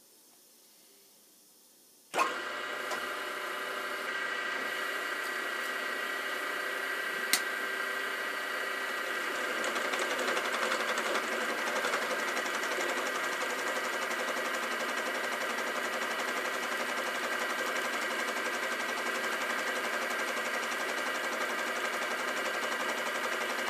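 Grizzly G0755 mill/drill switched on with a click about two seconds in, then running steadily with a whine made of several steady tones. A sharp tick comes about seven seconds in, and from about nine seconds the running sound grows louder and rougher.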